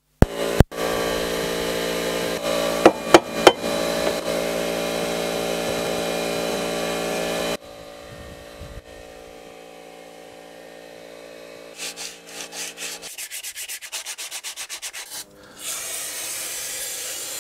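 Sandpaper rubbed by hand over drum-brake shoe linings, in long steady rubbing and then in a run of quick short strokes, about five a second. This is the linings being sanded to take off the glaze and burrs behind a rear brake squeal. A hiss follows near the end.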